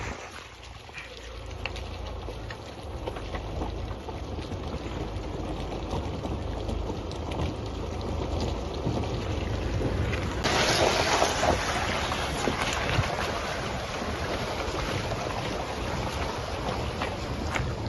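A vehicle's steady low rumble on rough off-road ground, with wind buffeting the microphone. About ten seconds in, a louder rushing hiss comes in and holds.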